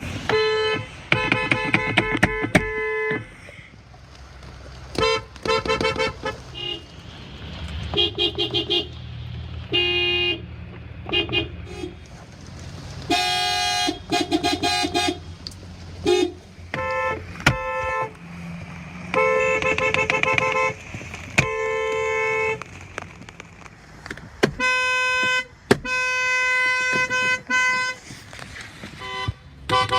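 Car horns honking over and over, at several different pitches. There are rapid trains of short toots near the start, separate honks through the middle, and longer steady blasts of a second or more toward the end.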